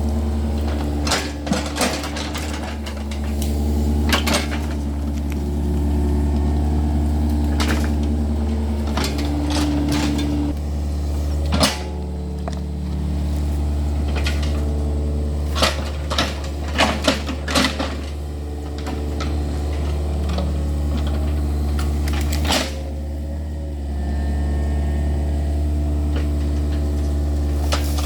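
Yanmar excavator's diesel engine running steadily as it digs out a ditch, its note shifting a few times. Sharp metallic clanks and knocks come now and then, several in quick succession around the middle.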